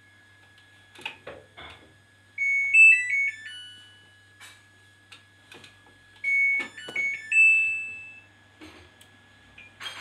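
Samsung ecobubble washer-dryer's control panel playing its short electronic power-off tune, then about six seconds in its power-on tune ending on a held note, with clicks of the panel buttons being pressed.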